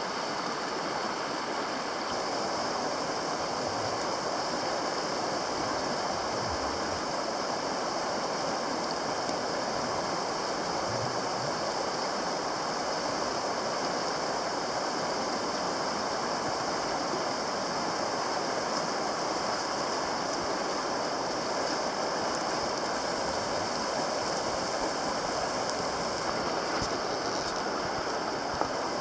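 Fast, shallow river rushing steadily over a cobble and gravel bed through riffles.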